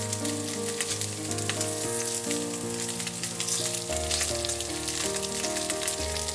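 Pieces of atsuage, thick deep-fried tofu, sizzling and crackling in hot oil in a frying pan as they brown, with background music underneath.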